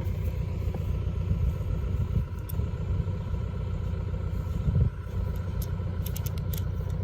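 Farm tractor engine running steadily with a low rumble, a louder thump just before the five-second mark and a few light clicks near the end.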